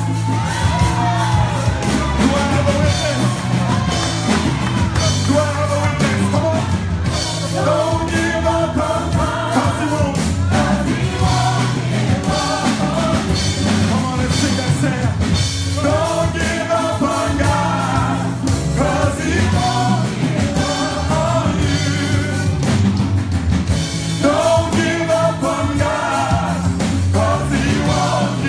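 Live gospel praise singing by a group of voices, with drums keeping a steady beat underneath.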